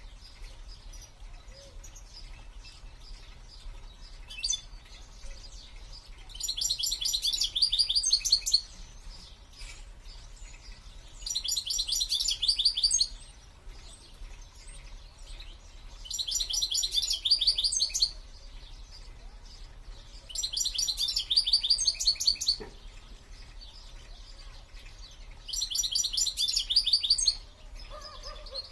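A caged songbird singing five short songs, each a rapid high trill of about two seconds, repeated every four to five seconds.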